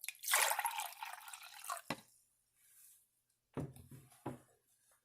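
Wine being poured into a cup: a splashing trickle lasting about two seconds that ends in a sharp knock, followed later by two soft knocks.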